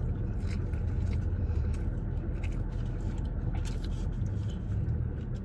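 Steady low rumble of a car heard from inside the cabin, with scattered short clicks and light scrapes.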